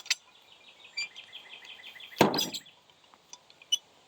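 Metal hand tool being handled, most likely the speed wrench: a fast, even run of light clicks lasting about a second, then a louder clunk, and a few faint metal clicks after.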